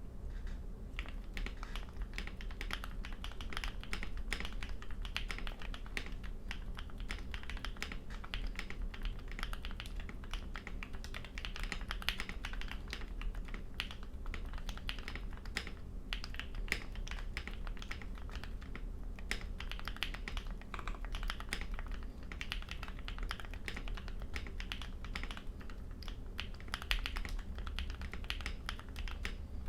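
Fast, continuous typing on a mechanical keyboard with Durock POM linear switches, lubed with Krytox 205g0 and filmed, under doubleshot ABS keycaps, in a Tofu60 case foamed and taped to cut hollowness and ping. The key strikes come as a dense, irregular stream of clicks, starting about a second in.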